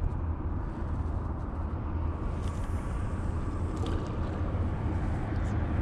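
Steady low outdoor rumble with no distinct source, with a few faint clicks about two and a half and four seconds in.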